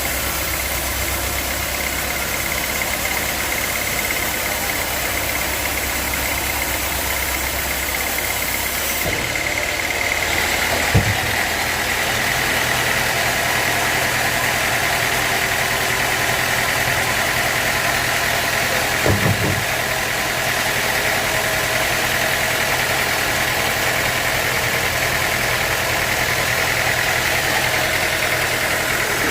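Sawmill machinery running steadily with a high, constant whine. The sound changes about a third of the way in, and two short knocks come a little later and again about two-thirds of the way in.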